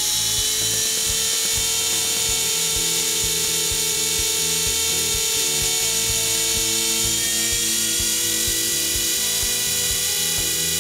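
Trex 450 electric RC helicopter's brushless motor and drive gears whining on a bench spool-up with the main blades off, run up to about half throttle. Several steady tones step up slightly in pitch a few times, with irregular faint ticking underneath.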